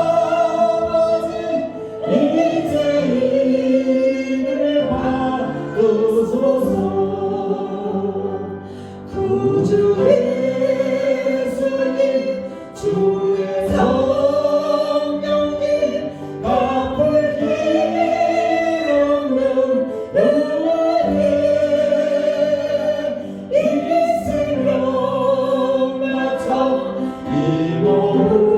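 A congregation singing a worship song together with instrumental accompaniment, in sung phrases a few seconds long.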